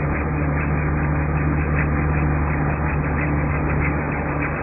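Steady drone of a towing vehicle's engine at a constant road speed, with road and wind noise, as it pulls an engineless gyroplane whose rotor is spinning up.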